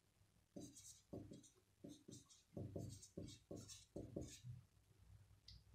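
Marker pen writing on a whiteboard: a quick run of short, faint strokes that stops about four and a half seconds in.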